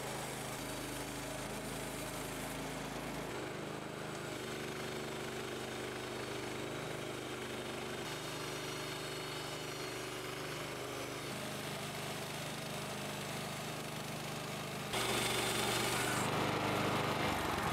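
Engine of a portable bandsaw mill running steadily under load as the band blade cuts along a log. It gets louder about fifteen seconds in.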